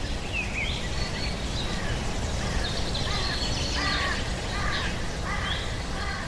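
Wild birds chirping and singing in short, repeated falling notes over a steady low outdoor rumble.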